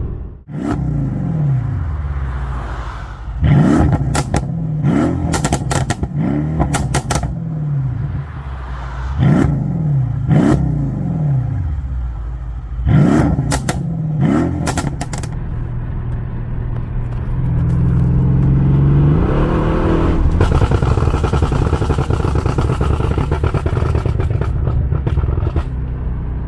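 Tuned Mercedes engine blipped sharply about seven times, each rev followed by a string of exhaust crackles and pops as the revs fall: the switchable pops-and-bangs tune at work. Later it is revved up more slowly and held high and loud.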